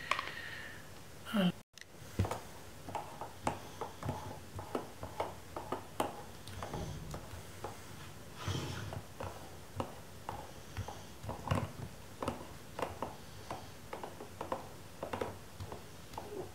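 Fujinon 90 mm large-format lens handled and turned by hand on a tabletop: irregular small clicks and taps of its metal and plastic parts, a few a second.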